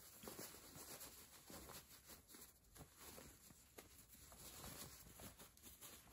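Near silence, with faint rustling of cotton fabric as fingers push out the corners of a pillowcase.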